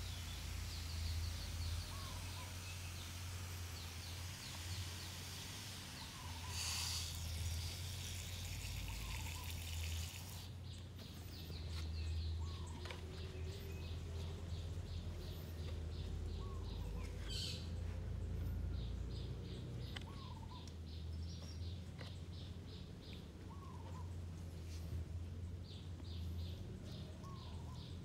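Outdoor birdsong: one bird gives a short rising call every few seconds, while bursts of rapid, high chirping trills come and go, over a steady low rumble.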